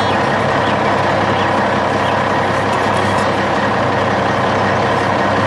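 Sound effect of a heavy dump truck's engine running steadily as it drives.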